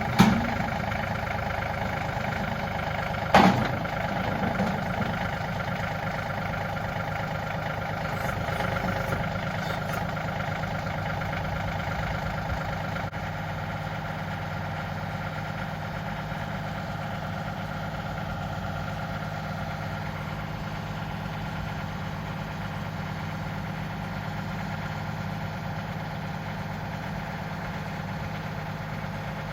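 John Deere 2032R compact tractor's three-cylinder diesel engine running steadily, with two loud sharp knocks, one at the very start and one about three and a half seconds in.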